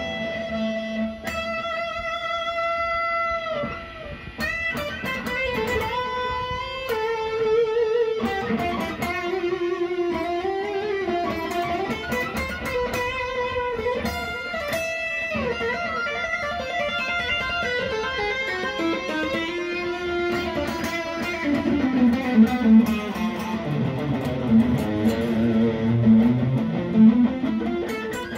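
Les Paul-copy electric guitar played through an amplifier: single-note lead phrases, with some notes held and several bent up and down in pitch, moving to lower notes near the end.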